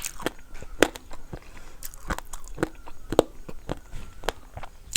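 Close-up chewing and biting of food, with irregular crisp clicks and crunches a few times a second.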